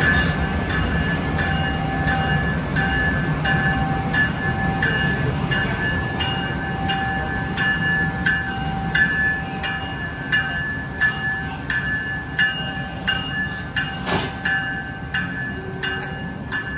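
A locomotive bell ringing steadily, about one and a half strokes a second, as the locomotive is moved during an engine change, over a low rumble from the train. A single sharp click sounds near the end.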